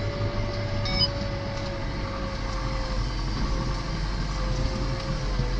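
John Deere tractor running steadily under a steady whine, with a short electronic beep about a second in.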